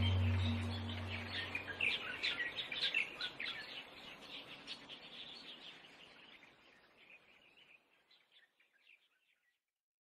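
Birds chirping, many short high calls over the tail of a soft sustained drone that ends about two seconds in. The chirps fade out steadily to silence by about nine seconds.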